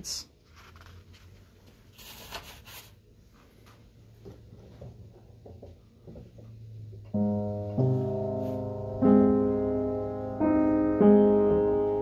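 A short rustle and faint handling noise, then slow piano chords begin about seven seconds in, each chord held and ringing, with a new one struck every second or so.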